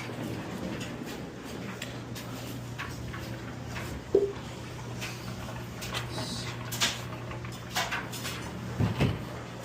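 Clicks and knocks of hands working on a commercial washer's metal cabinet panels and screws, the sharpest knock about four seconds in and a few clunks near the end, over a steady low hum.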